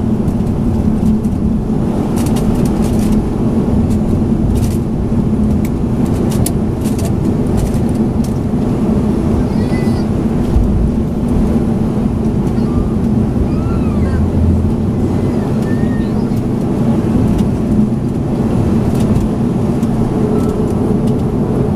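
Cabin noise of a Boeing 737-500 taxiing, heard from a window seat over the wing: the steady drone of its CFM56-3 engines at taxi power with a low hum, and a few faint clicks from the cabin.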